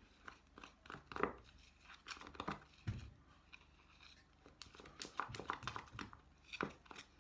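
Light handling noises: scattered clicks and soft crinkles, as of small containers and packaging being handled.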